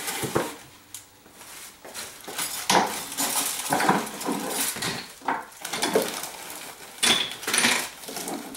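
Supplement and vitamin bottles being taken off cabinet shelves and dropped into a clear plastic storage bin: an irregular run of knocks and rattles.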